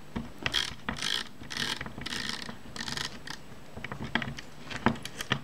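Small screwdriver turning in the fixing on the film-advance lever of a Kodak Retina Ia camera to tighten it: a series of short scraping rasps about half a second apart, with small metallic clicks.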